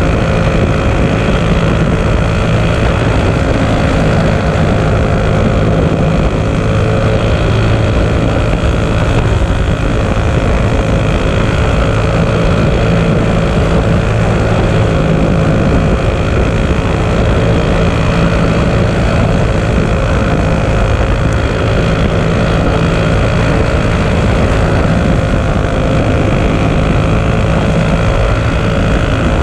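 Racing kart's single-cylinder four-stroke Clone engine, recorded onboard, running hard at high, nearly constant revs through the laps, with a steady drone that wavers only slightly in pitch.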